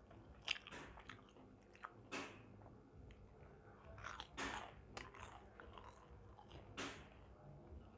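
Close-miked chewing of crispy fried kurkure momos, faint, with several sharp crunches of the fried coating spread through.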